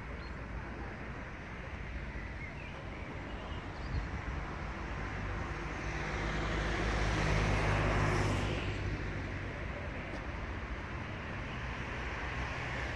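Street traffic: a steady hum of cars, with one vehicle passing close, swelling to its loudest around the middle and then fading away.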